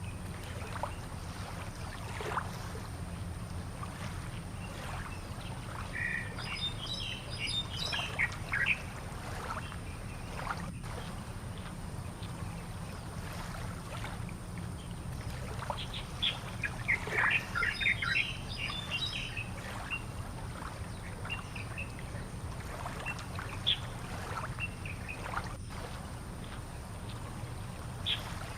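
Birds chirping and squawking in scattered bursts, busiest about a third of the way in and again past the middle, over a steady low rumble.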